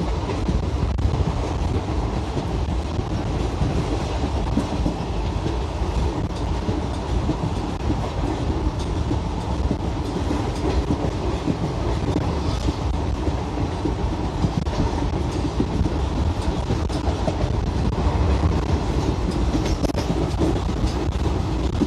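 Passenger train running steadily along the track, heard from inside a coach: a constant rumble of wheels on the rails with scattered light clicks.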